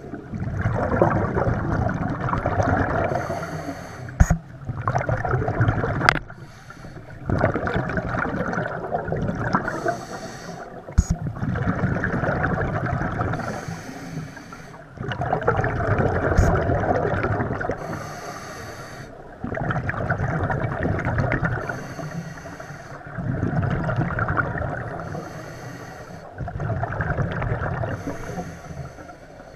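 Scuba diver breathing underwater through a regulator: repeated breaths about every three to four seconds, each with a rush of exhaled bubbles. A few sharp clicks are heard, near four, six and eleven seconds in.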